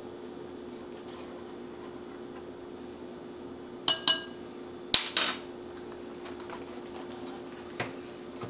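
Measuring spoon clinking and tapping against a ceramic mixing bowl: two ringing clinks about four seconds in, then two sharp taps a second later, with a lighter knock near the end as the spoon is set down on the glass stovetop. A steady low hum runs underneath.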